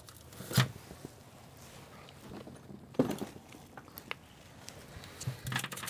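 Aluminium foil rustling and crinkling as it is wrapped around a wire, with two sharper handling sounds about half a second and three seconds in, and more quick rustles near the end.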